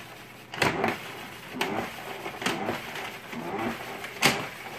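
Pull-handle salad spinner being pumped: sharp plastic clacks about once a second as the handle is pulled up and pushed down, with the gear and spinning basket whirring between strokes.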